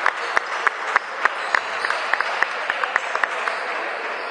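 A group clapping in a gym hall, first in rhythm at about three claps a second, then breaking into looser, denser applause that thins out near the end.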